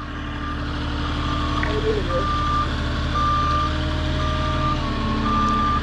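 Forklift backup alarm beeping about once a second as the machine reverses, over the steady low hum of its engine.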